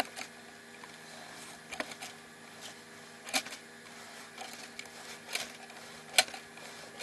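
A handful of light, scattered clicks and taps as PLA filament is pulled back out through the M3D Micro 3D printer's feed tube, over a faint steady hum.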